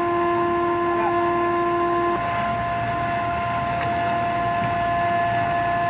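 Steady machinery hum: several constant whining tones over a noisy rumble. The lowest tone cuts off about two seconds in.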